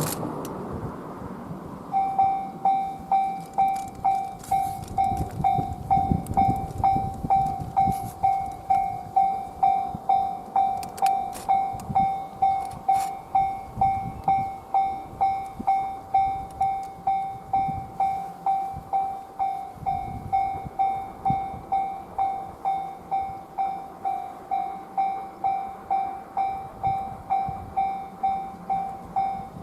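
Railway level-crossing warning bell ringing, starting about two seconds in and repeating evenly at about 1.7 strikes a second, the signal that a train is approaching the crossing.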